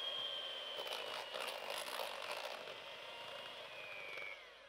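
Old electric hand mixer whipping cream in a plastic beaker, the stage where the cream is beaten until stiff. It runs steadily with a high whine that slowly falls in pitch, then fades out near the end.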